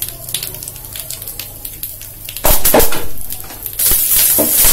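Mustard seeds, cumin and urad dal spluttering in hot ghee and oil for a tempering, with scattered light crackles. About halfway through come a couple of loud knocks of metal on the pan, and near the end a louder, steady sizzle.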